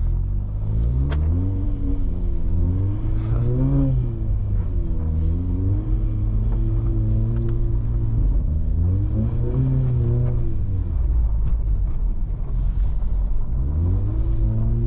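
Volkswagen Golf R's turbocharged four-cylinder engine through a valved non-resonated cat-back exhaust and open intake, pulling up in revs and easing off again several times as the car is driven slowly. Revs climb over the first four seconds, hold fairly steady, climb again about nine to ten seconds in, fall away, and rise once more near the end.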